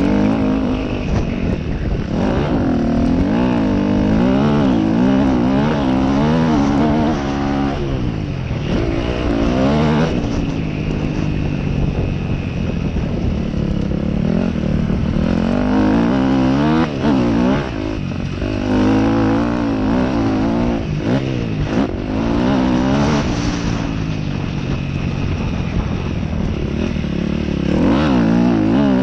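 Dirt bike engine revving hard on a motocross track. Its pitch repeatedly climbs and drops as the rider accelerates through the gears and rolls off the throttle for jumps and turns.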